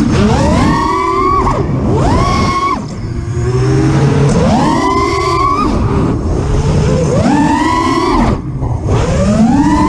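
An Armattan Rooster FPV quadcopter's brushless motors whine loudly. The pitch sweeps sharply up with each throttle punch and falls away as the throttle is chopped, again and again.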